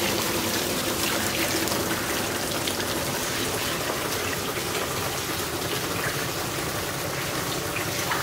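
Water running and trickling steadily into a shallow tarpaulin-lined fish tank.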